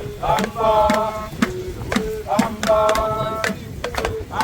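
Voices chanting a short sung phrase that repeats about every two seconds, with sharp knocking beats between the phrases.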